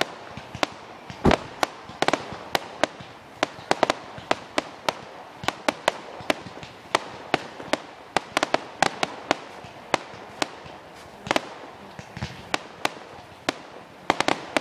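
Fireworks display: an irregular run of sharp bangs and pops, several a second, with one deeper, louder bang about a second in.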